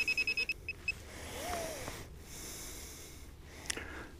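A metal detector beeping in rapid pulses of one high pitch, about ten a second, stopping within the first second: the signal of a target at very close range. Faint rustling follows, with one sharp click near the end.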